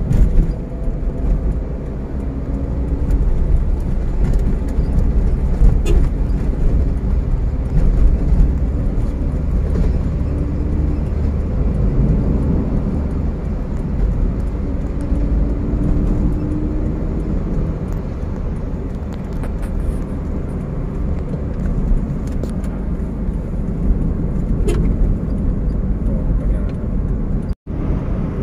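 Steady low road and engine rumble heard inside a moving car's cabin, with a faint hum above it. The sound cuts out for a moment near the end.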